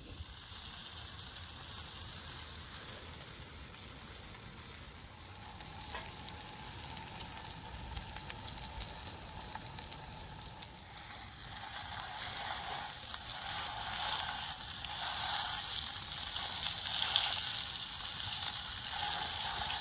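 Salmon fillets sizzling in hot oil in a frying pan, the sizzle growing louder about halfway through. Near the end a knife and a wooden stirrer scrape in the pan as the fish is broken up.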